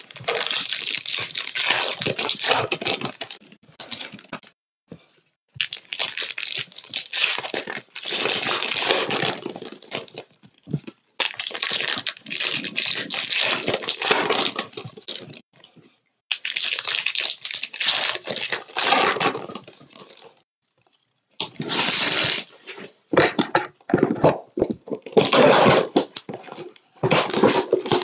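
Plastic and foil wrappers on trading-card boxes and packs being torn open and crinkled by hand, in bursts of several seconds with short pauses between.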